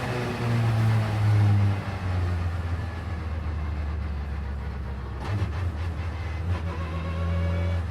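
Vauxhall Vectra supertouring race car's 2.0-litre four-cylinder engine idling, with a short blip of revs near the start and another about five seconds in.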